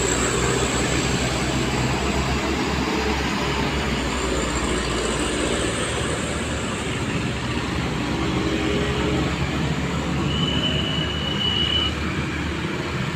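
Heavy road vehicle running with a steady engine and road rumble, typical of a large bus. A single high-pitched squeal is held for about a second and a half about ten seconds in.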